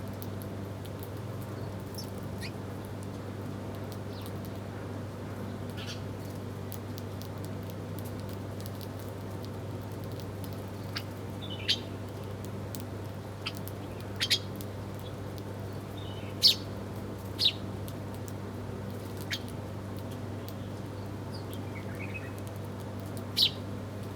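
Small birds giving short, sharp chirps, scattered and irregular, with a few louder ones in the second half, over a steady low hum and faint clicking.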